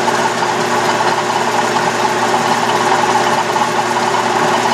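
Metal lathe running at a steady speed, its motor and drive giving an even hum.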